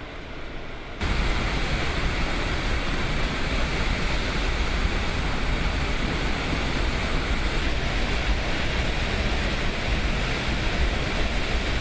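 Steady rush of fast-flowing floodwater with a deep rumble, suddenly louder about a second in.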